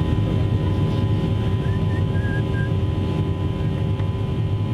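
Steady low drone of an airliner's engines and airflow, heard inside the passenger cabin, with a few constant hums layered over the rumble.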